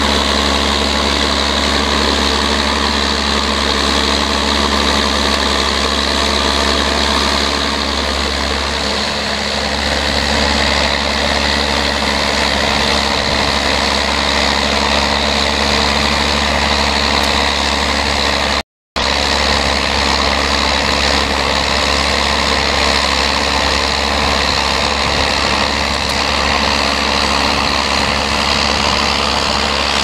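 Massey Ferguson 1200 tractor's six-cylinder diesel engine running steadily under load as it pulls a four-furrow plough through the soil. The sound drops out for an instant about two-thirds of the way through.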